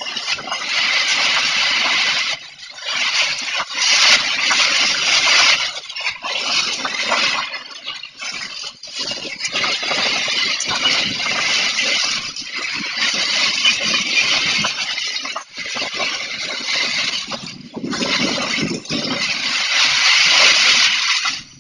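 Storm wind gusting hard with rain: a loud rushing noise that swells and eases in gusts every few seconds.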